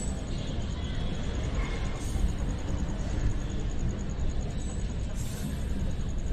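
Passenger train running past on the tracks: a steady rumble of wheels on rails.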